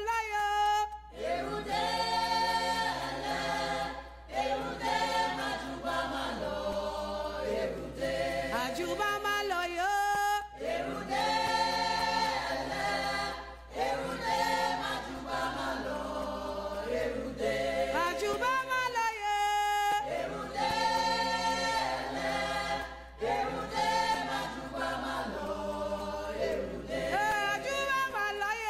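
Choir singing unaccompanied, several voices together in harmony, in repeated phrases with short breaks between them.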